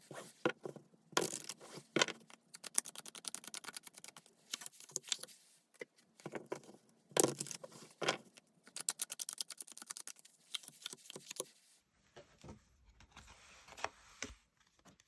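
Tarot cards being shuffled and handled. There are two runs of rapid fluttering clicks from the shuffle, with a few louder single taps and slaps of the deck between them. Softer rustling handling follows near the end.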